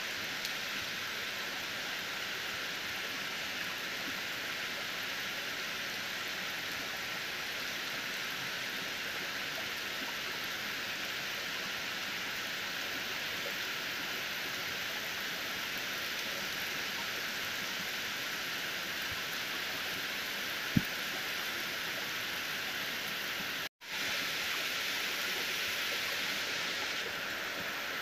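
Heavy rain falling steadily on palm trees, foliage and ground, a constant hiss. A single sharp tap about three quarters of the way through stands out, and a little later the sound drops out for an instant.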